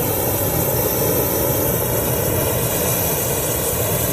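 Forced-air Belch Fire propane torch burning with compressed air fed in: a steady, loud rushing noise of flame and air.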